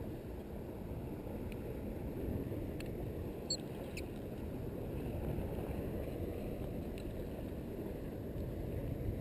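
Steady low rumbling wind noise on the microphone, with a few faint clicks.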